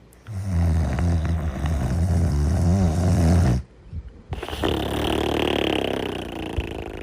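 Snoring in deep sleep: one loud, low, buzzing snore breath lasting about three seconds, a short pause, then a softer, breathier breath of about two and a half seconds.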